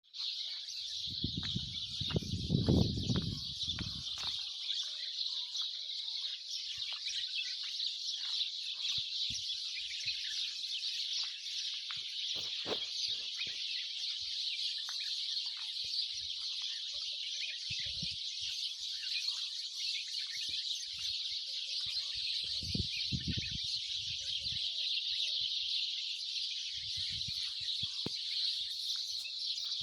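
Dense, continuous high-pitched chirping from a chorus of many small birds. A few low rumbles and thumps come through, the loudest about two seconds in.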